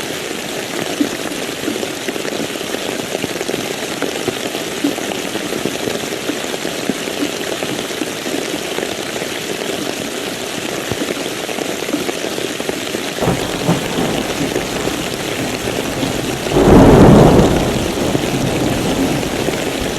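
Steady rain falling, with a low thunder rumble building about two-thirds of the way in and a loud thunderclap near the end that rumbles for about a second and a half before fading back under the rain.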